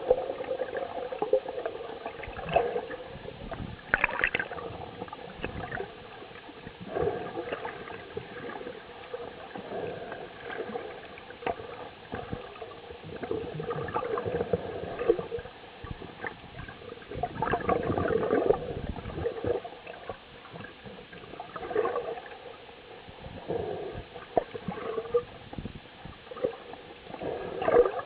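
Underwater sound of rough sea heard through a camera housing: irregular gurgling and sloshing water, rising in surges every few seconds, with a longer surge about two-thirds through.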